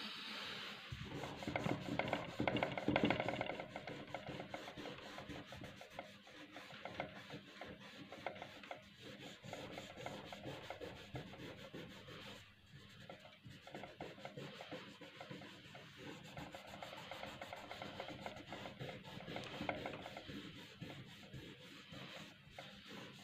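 A cloth rubbed back and forth over pencil shading on drawing paper to blend the graphite. It makes a continuous scratchy rubbing of quick strokes, loudest in the first few seconds.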